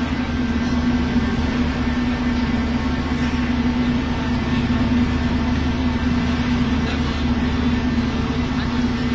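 Large seismic shake table's hydraulic machinery running, a loud steady mechanical hum with a constant low drone.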